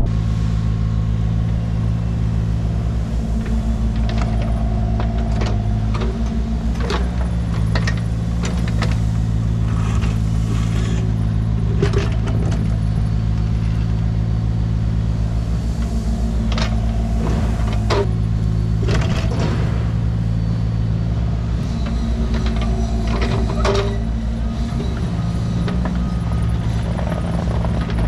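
Diesel engine of a compact construction machine running steadily under work, with scattered knocks and clanks as brush and debris are moved.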